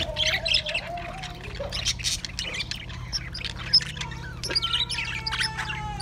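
A flock of budgerigars chattering: rapid, overlapping chirps and squawks with no break, over a steady low hum.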